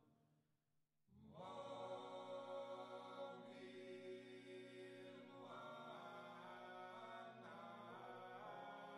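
Background music: a slow vocal chant of long held notes, nearly silent for the first second before a new phrase swells in, with the notes changing about five seconds in.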